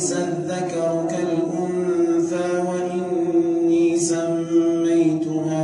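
A man chanting Quran recitation in the melodic tajweed style, drawing out one long phrase at a steady pitch.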